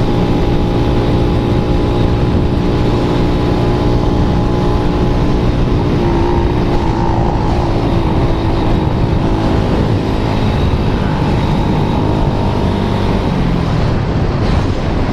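Engine running steadily at speed under load, a continuous drone with rushing noise.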